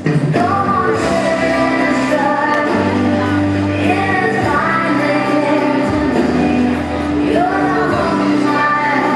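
Music with a singing voice over sustained accompaniment, cutting in suddenly louder.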